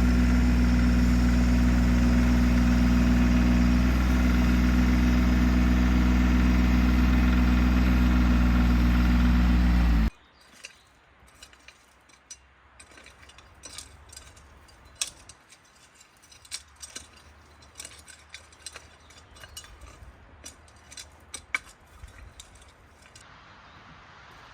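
A motor engine running steadily at a constant speed, cut off abruptly about ten seconds in. After that come faint, scattered light clicks and ticks.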